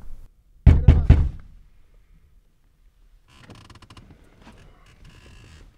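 Three loud raps on a pickup truck's driver-side window in quick succession. After a pause, a faint whirring hiss from about three seconds in, the power window being lowered.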